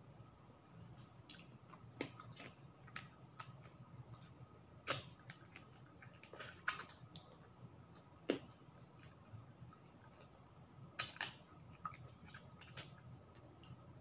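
A person eating chicken adobo and rice by hand: quiet chewing and mouth clicks, with short sharp clicks scattered through and a few louder ones, one of them a quick double.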